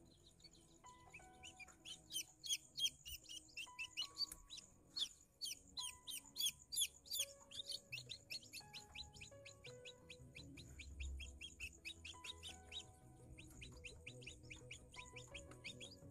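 Newly hatched ayam kampung (Indonesian native chicken) chick peeping: a long series of high, falling peeps, about three or four a second, loudest in the first half.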